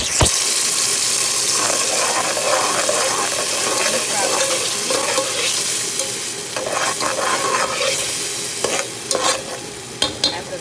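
Kidney beans and green epis seasoning sizzling in hot oil in a frying pan, stirred with a utensil that scrapes the pan, with several sharp scrapes near the end.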